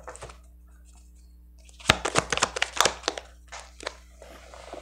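Tarot cards being handled and drawn from the deck: a quick run of crisp card clicks and rustles about two seconds in, then a few softer taps near the end.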